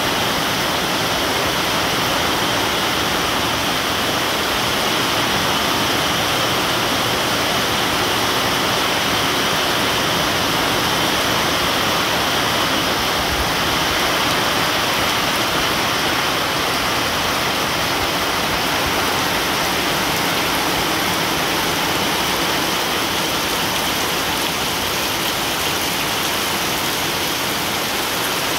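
Heavy tropical downpour: rain falling hard and steadily on banana leaves and trees, a dense, even rush with no let-up.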